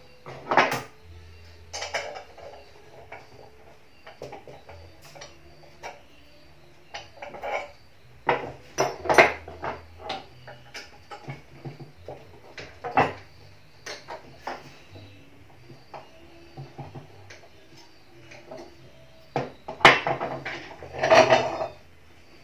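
Irregular metal clinks and knocks of a homemade manual pipe bender being taken apart by hand: steel shaft, pin and tools handled and set down on the workbench. The loudest knocks come about half a second in and again around twenty seconds in.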